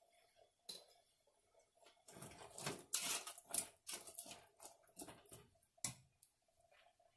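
A perforated metal ladle stirring and scraping in an aluminium pressure cooker pot of thick vegetable curry. It makes a run of quick scrapes and knocks that starts about two seconds in and lasts about four seconds, over a faint steady hum.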